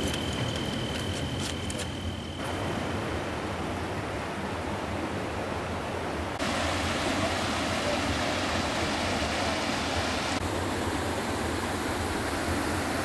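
Steady rushing of water in a rocky mountain river, flowing over boulders and small cascades. The level jumps up or down abruptly a few times.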